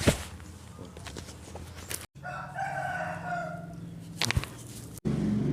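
A rooster crowing once, about two seconds long, starting roughly two seconds in. Near the start there is a single sharp, loud click, and a few short clicks follow the crow.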